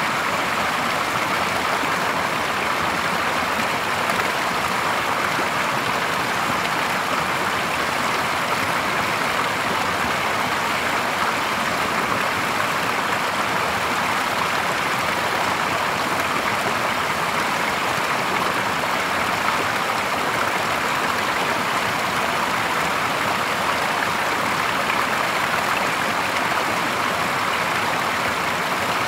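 Small stream of spring water splashing steadily from a spout and over a low drop into a shallow pool: an even, unbroken rush of water.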